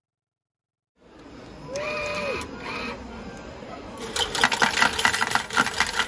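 Coin change machine paying out after taking a banknote: 500-won coins clatter rapidly into its metal outlet tray for about two seconds, starting about four seconds in.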